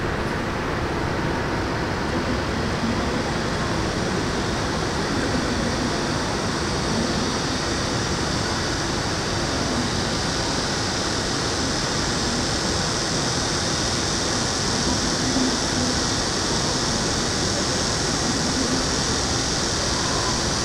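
Steady outdoor city ambience: an even wash of noise without distinct events, with faint voices of passers-by now and then.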